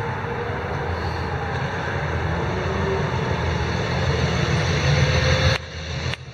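JUN BRZ's 2.4-litre V8 engine running at low revs as the car rolls toward and past, a steady deep rumble that grows louder as it comes close, then drops sharply about five and a half seconds in.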